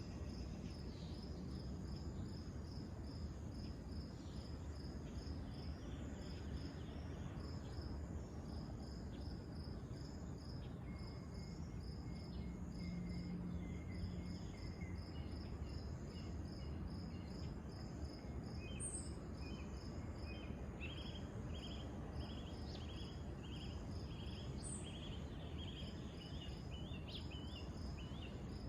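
Insects chirping in a steady pulsed rhythm, about three chirps a second. A second, lower chirping joins about two-thirds of the way in. Underneath is a constant low rumble of background noise.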